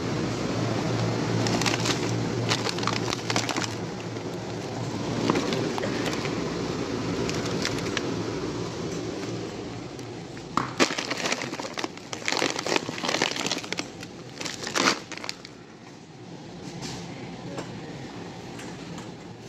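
Plastic bag of frozen gyoza crinkling and crackling as it is grabbed and handled, a cluster of sharp crunches about halfway through, over the steady hum of a store.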